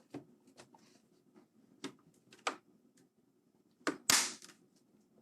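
Light plastic clicks and taps as a mechanical keyboard's plastic case cover is pressed and snapped onto its frame, with a sharp click about four seconds in followed at once by a louder, slightly longer snap.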